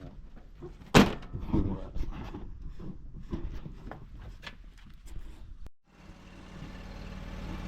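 A sharp thunk about a second in and scattered knocks from fuel caps or cans being handled, then after a brief break a lawn tractor's engine running steadily.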